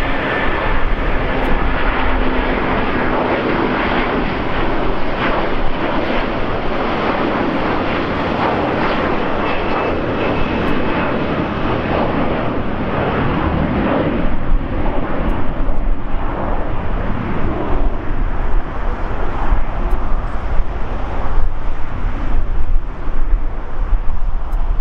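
Jet engines of a twin-engine SAS Airbus A330 at take-off thrust, climbing out after departure: a loud, steady jet roar with a faint whine at first, turning rougher and more uneven in the second half as the aircraft climbs away.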